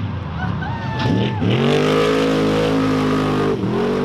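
Unlimited-class off-road trophy truck engine revving hard over a jump. The revs climb steeply about a second in and hold high, then dip briefly near the end and rise again.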